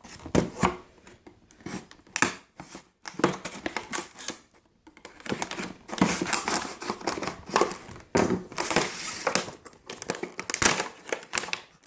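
Product packaging being opened by hand: irregular crinkling, rustling and sharp clicks, busier from about six seconds in.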